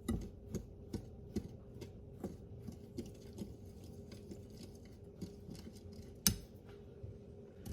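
A utensil stirring dry batter ingredients (cornmeal, flour and corn muffin mix) in a mixing bowl, clicking against the bowl about two to three times a second, with one louder knock about six seconds in.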